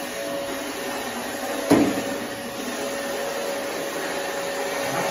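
Compact walk-behind floor scrubber running over a tiled floor: a steady motor whine over a noisy hum, with a single sharp knock just under two seconds in.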